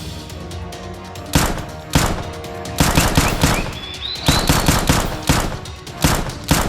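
Gunfire sound effects over background music: two single shots, then rapid strings of shots fired in bursts.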